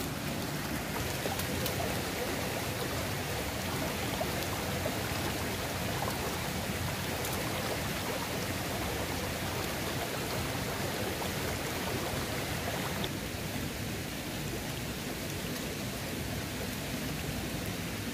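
Steady rush of a mountain stream flowing over rocks, an even water noise that drops slightly about thirteen seconds in.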